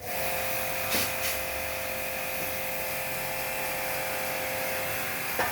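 A small machine switched on, running steadily with a hissing whine and a few held tones, with a couple of clicks about a second in and another near the end.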